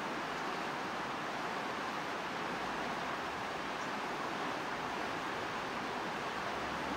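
Steady, even rushing noise with no distinct knocks or creaks.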